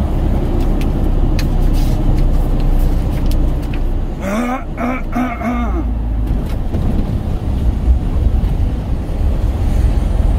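Lorry's diesel engine running, a steady low rumble. About four seconds in there is a short wavering, voice-like sound.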